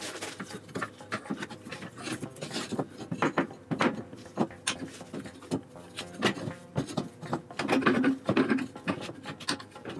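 Irregular clicks, taps and scrapes of a new heavy-duty steel leaf spring being slid and worked into its mount and bushings under a Club Car DS golf cart, with a denser run of knocks about eight seconds in.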